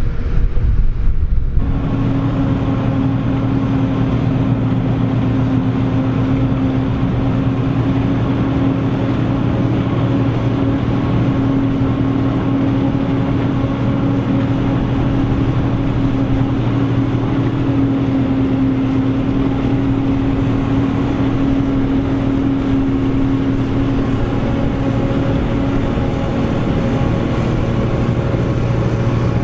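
Krone BigX 700 forage harvester running steadily under load at constant engine speed, a continuous heavy drone with a steady hum. A rougher rumble fills the first second and a half before the drone sets in.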